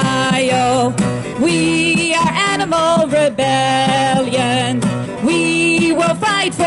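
A woman singing a melody into a microphone, amplified, with a strummed acoustic guitar accompanying her.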